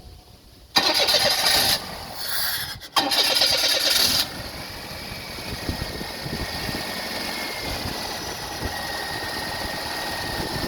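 Car engine being cranked over by the starter in two bursts and catching near the 4-second mark, then settling into a steady idle with a thin high whine. The car has an intermittent hard-starting problem.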